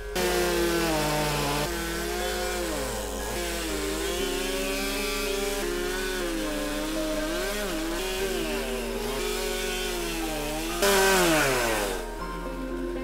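Gas chainsaw cutting into a wooden log, its engine pitch rising and falling as the chain bites and is revved. About eleven seconds in it revs up loud and high, then falls away.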